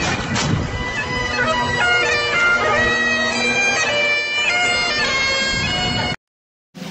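Bagpipe music: a piped melody over a steady drone, cutting off abruptly about six seconds in.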